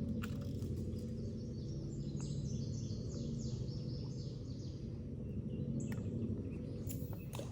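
A songbird singing a quick run of short, falling high chirps over a steady low outdoor rumble, with a few faint clicks.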